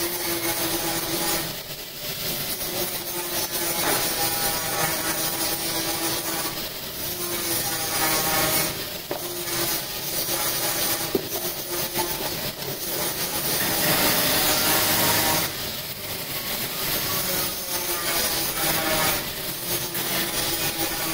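Motor-driven buffing wheel polishing a stainless steel chafing dish: a continuous rough grinding-rubbing noise with a humming pitch that shifts, swelling and easing as the piece is pressed to the wheel and moved.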